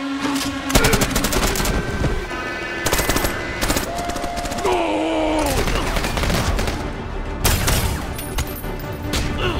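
Several bursts of rapid automatic gunfire over background film music.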